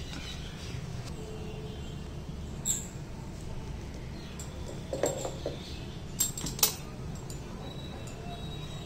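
Handling sounds at a domestic sewing machine as a sari's folded edge is placed under the presser foot: soft cloth rustling and a few light clicks, mostly between about five and seven seconds in, over a steady low hum.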